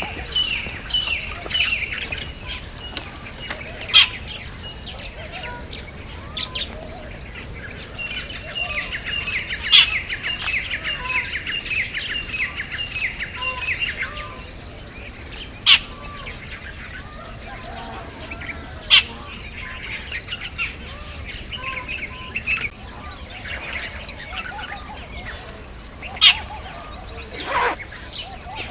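Jungle babblers calling: fast, chattering runs of short, repeated falling notes, strongest in the first few seconds and again from about 8 to 14 s, with scattered calls in between. Several sudden sharp sounds stand out above the rest, spaced several seconds apart.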